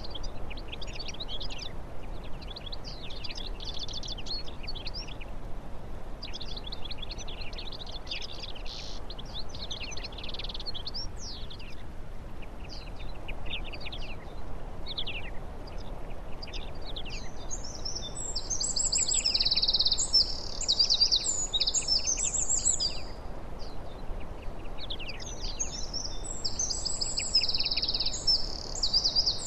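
Wild songbirds chirping, with a louder, fast, high twittering song coming in twice in the second half, over a steady low background hiss of outdoor ambience.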